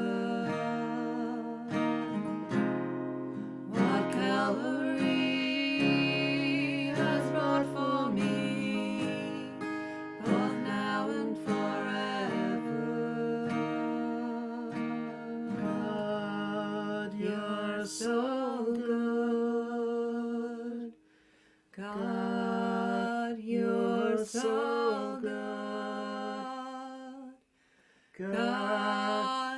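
Strummed acoustic guitar, capoed, accompanying slow sung worship. Near the end the guitar stops and the singing goes on unaccompanied.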